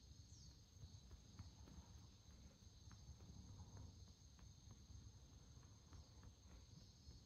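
Near silence: room tone with a faint steady high-pitched whine.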